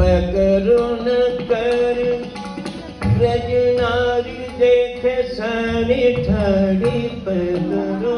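An elderly man singing a Hindustani classical vocal line into a microphone, with sustained, ornamented notes that glide up and down, over low drum strokes.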